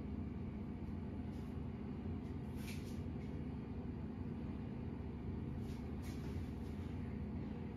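Steady low background rumble, with two faint short rustles a few seconds apart.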